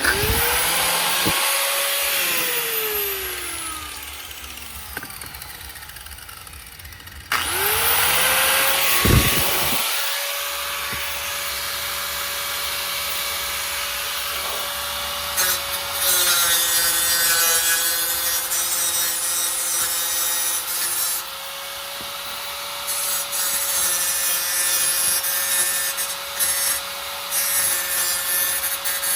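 Corded angle grinder with a cutting wheel starting at full speed the moment it is plugged in. About two seconds in it winds down with a falling whine. About seven seconds in it starts again and runs at a steady high whine under a harsh grinding hiss as the wheel cuts into metal.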